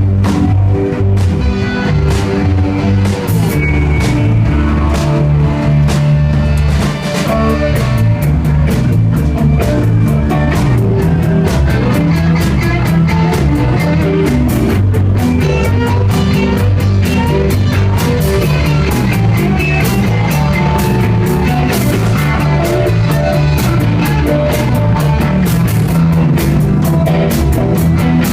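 Live rock band playing loudly, with electric guitar, bass and a steady drum-kit beat.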